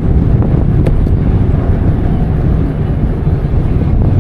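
Wind buffeting the microphone of a camera riding on a moving e-bike: a steady, loud low rumble.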